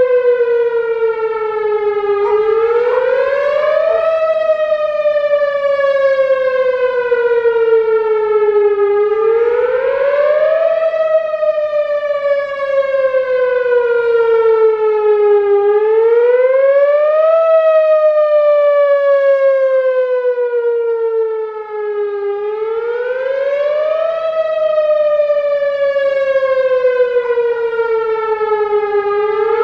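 Whelen Vortex R4 rotating outdoor warning siren sounding a full wail during its monthly test. It is loud, and its pitch rises quickly for about two seconds and then sinks slowly for about four, repeating every six or seven seconds.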